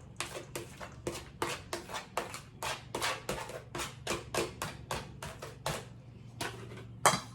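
Raw ground turkey being mixed with chopped seasonings in a bowl: about three soft, squishing strokes a second, with one sharper, louder stroke near the end.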